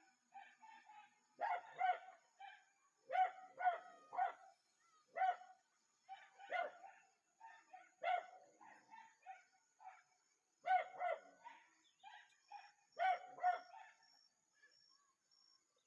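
A dog barking repeatedly, in quick runs of two or three barks a second or two apart, falling quiet near the end.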